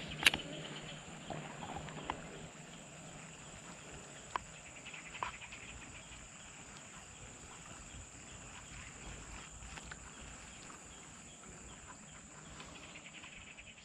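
Quiet swamp ambience: a steady high-pitched hum under faint animal calls, with a sharp click just after the start and a few light ticks over the next few seconds.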